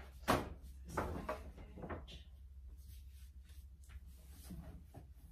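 A large rigid cardboard gift box and its lid being handled: a few sharp knocks and scrapes in the first two seconds, then quieter scattered handling as hands reach into the box.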